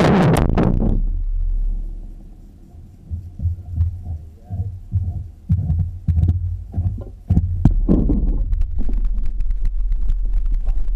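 Low muffled rumble with irregular thumps and knocks on a GoPro camera's microphone, as the camera is handled and picked up. It grows louder and steadier about seven seconds in.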